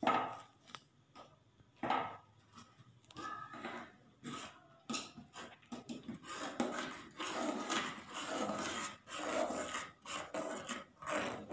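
Steel ladle scraping and knocking against the sides and bottom of an aluminium pot in irregular strokes, stirring vermicelli simmering in milk.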